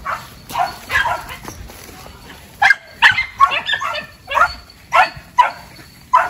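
Civet-hunting dogs barking: about a dozen short, sharp barks at irregular intervals, several in a quick run around the middle.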